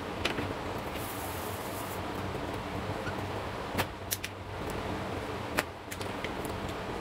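Whiteboard eraser wiping marker off a whiteboard, with several sharp clicks, the loudest about four and five and a half seconds in, over a steady low hum.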